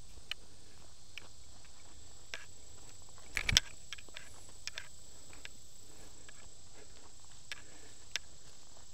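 Footsteps through grass: scattered light clicks and rustles, with a louder double knock about three and a half seconds in, over a steady hiss and a faint high whine.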